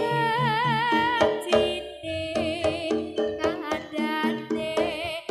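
Javanese gamelan ensemble playing through a PA sound system: metallophones ringing steady notes over regular drum strokes. A sung melody line with strong vibrato rides over it near the start and again in the second half.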